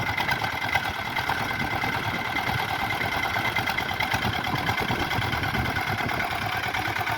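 Swaraj 855 tractor's three-cylinder diesel engine running steadily with an even diesel clatter. The men testing it say the clutch is not taking up the drive, so the engine is not being pulled down under load.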